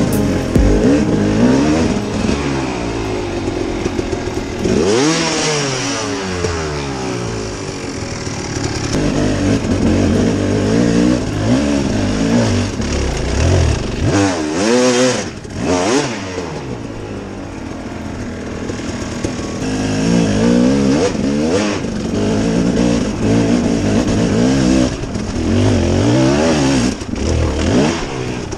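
300cc two-stroke enduro motorcycle climbing a steep slope, its engine revving up and down repeatedly as the throttle is worked, with a few knocks from the bike over rough ground about halfway through.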